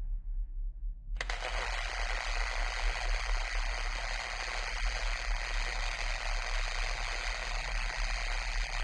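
Steady hiss over a low hum, the hiss starting abruptly about a second in and then running evenly.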